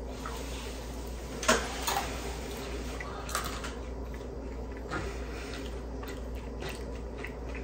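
Quiet chewing and mouth sounds of people eating pizza, with a few short clicks and taps, the loudest about a second and a half in, over a steady low hum.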